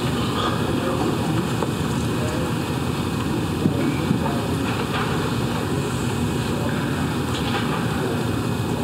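Steady room noise, a continuous hiss and rumble, with faint indistinct murmurs now and then.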